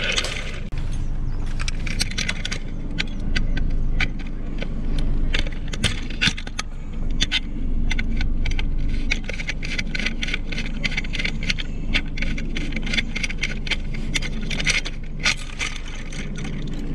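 Small metal sailboat rigging hardware, a shackle and ring, clinking and jingling as it is handled, with many quick, irregular clicks that come thicker in the second half. Under it runs a steady low rumble.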